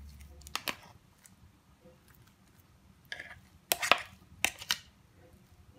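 A utensil clicking, knocking and scraping against a plastic food processor bowl as ground pork and shrimp are scooped out into another bowl: one click about half a second in, then a cluster of clattering knocks and scrapes about three seconds in.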